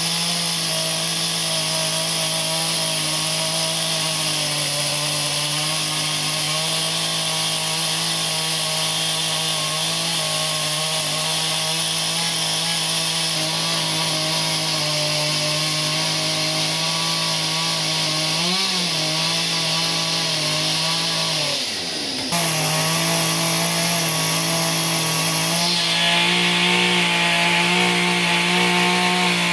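Chainsaw running at steady high throttle, its chain shaving a log as the log spins on a lathe. The pitch wobbles briefly about two-thirds through and the sound breaks off for a moment soon after, and near the end the hiss of cutting wood grows louder.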